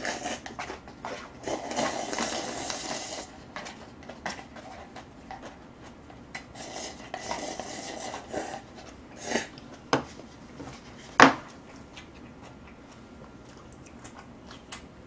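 Close-up eating sounds: slurping of Chapagetti black bean instant noodles, two longer slurps from the paper cup, the second about seven seconds in. Then a few sharp clicks of chopsticks and dishes, the loudest about eleven seconds in.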